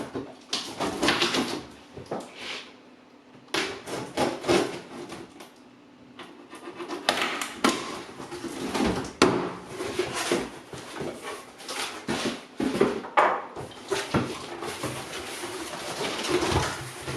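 Cardboard box being opened and its contents handled: irregular scrapes, rustles and knocks, with a couple of brief lulls.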